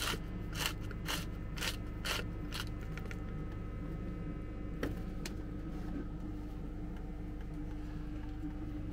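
Salt being added by hand to tomato sauce, heard as short noisy strokes about two a second for the first two and a half seconds. After that a steady low hum remains, with a couple of small clicks about five seconds in.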